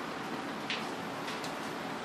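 A few light taps and clicks of a toy zebra knocking against a clear plastic tub of water, the sharpest one about two-thirds of a second in, over a steady background hiss.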